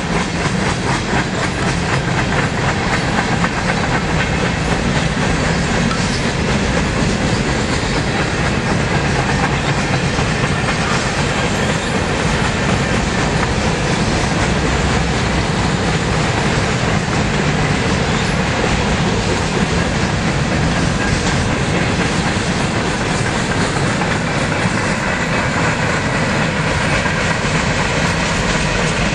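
Steel wheels of freight cars, boxcars and centerbeam flatcars, rolling steadily past: a continuous loud rumble with rapid clicking over the rail joints.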